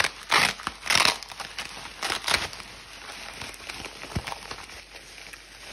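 Bubble wrap held with packing tape being pulled open by hand, crinkling. Several loud, sharp crackles come in the first couple of seconds, then a softer steady rustle.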